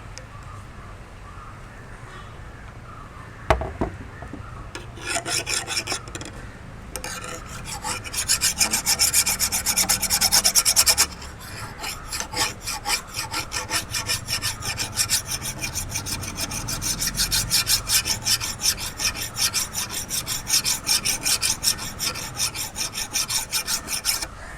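Hand file rasping along the steel blade edge of grass shears in quick, even back-and-forth strokes, sharpening the dulled edge. A single knock comes about three and a half seconds in, before the filing starts.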